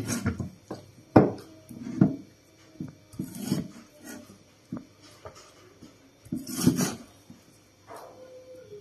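A large kitchen knife cutting through slabs of salted pork belly with thick skin and knocking down onto a wooden chopping board. The knocks are irregular, about one a second, and the loudest comes about a second in, with the knife scraping between them.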